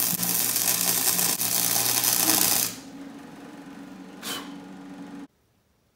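A power tool running with a loud hiss and a steady motor hum for nearly three seconds, then dropping to a quieter steady hum with one short burst before cutting off abruptly near the end.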